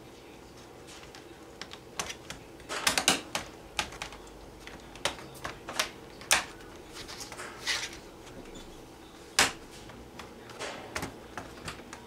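Irregular plastic clicks and snaps from an Acer Aspire E5-521 laptop's keyboard as it is pressed down and worked back into its clips, some clicks in quick clusters, the loudest snap about nine seconds in.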